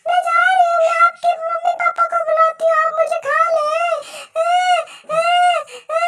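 A very high-pitched, sped-up cartoon voice singing wordless notes. It opens with a long wavering tone, then breaks into a string of short notes that each rise and fall, about two a second.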